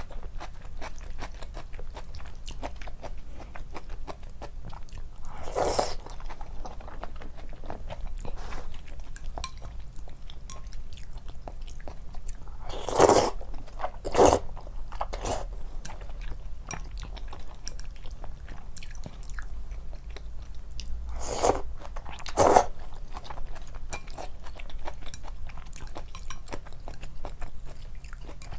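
Close-up chewing and biting of food, with a steady patter of small wet mouth clicks and a few louder bites, the loudest about halfway through.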